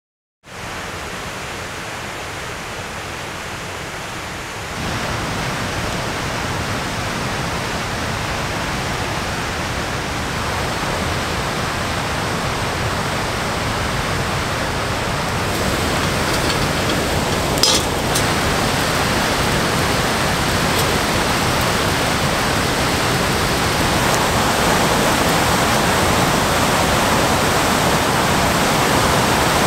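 River rapids in high spring flow: a steady rush of whitewater, starting after a moment of silence and stepping up in loudness about five seconds in. One brief click about eighteen seconds in.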